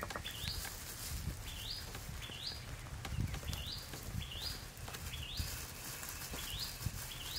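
A bird repeating a short, high, upward-sliding call about once a second, over soft knocks of a small knife cutting broccoli on a wooden board.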